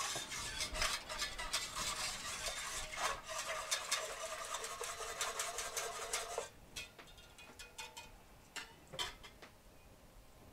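Wire whisk stirring hot cocoa milk in an enamelled Dutch oven, scraping and clicking against the bottom and sides of the pot as the milk heats. The whisking stops about two-thirds of the way through, leaving a few light taps.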